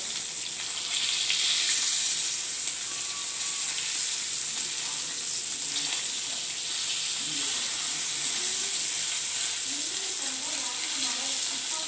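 Masala-coated fish pieces shallow-frying in hot oil on an iron tawa, a steady sizzling hiss of the oil, a little louder for a couple of seconds after the first second.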